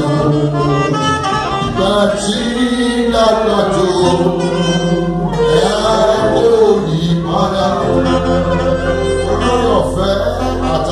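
Worship singing in a church service: voices singing a song with instrumental accompaniment.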